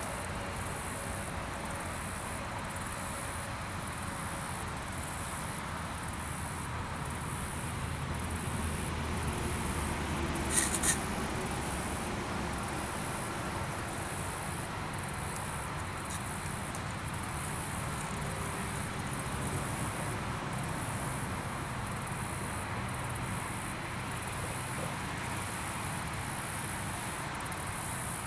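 Insects chirping in a steady, high, evenly pulsing chorus, with a brief cluster of sharp clicks about ten seconds in.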